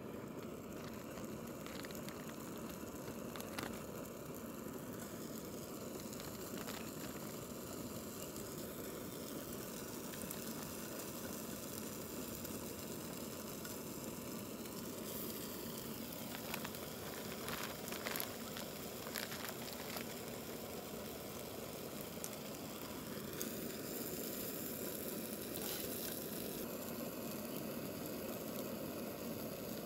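Chicken pieces sizzling as they fry in a small pan on a gas camping stove, with a few clinks and scrapes of a utensil in the pan, mostly around the middle.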